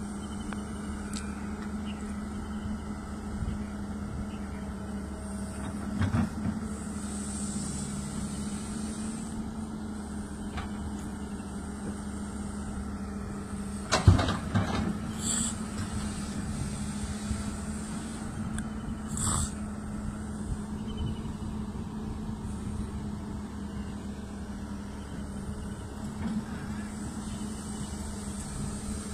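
Heavy diesel engines of a wheeled excavator and a tipper truck running steadily under load, as the excavator's bucket pushes the stuck truck up a sand slope. A few knocks, with one loud bang about halfway through as the bucket strikes the truck's steel tipper body.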